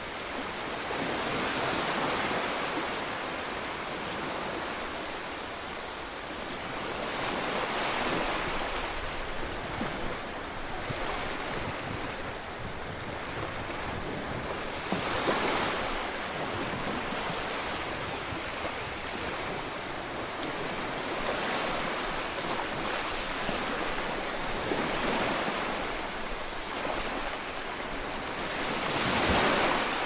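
Ocean waves breaking and washing up a shore. The surf swells and recedes every few seconds, with the biggest surge near the end.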